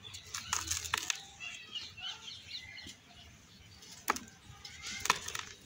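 Dry molded yellow-soil (sand-cement) cups crushed and crumbled by hand: a run of gritty crunches and crackles with loose powder trickling, the sharpest cracks at about four and five seconds in.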